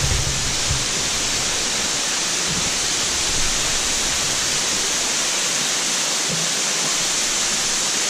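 Tall waterfall pouring down rock into its pool: a steady rush of falling water, with a few low thumps in the first second.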